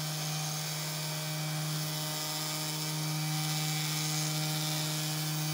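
Spindle motor of a CNC2418 router running with a 0.8 mm corn-tooth end mill cutting a hole in a PCB blank on its final, deepest pass. It gives a steady hum with a hiss above it, unchanging throughout.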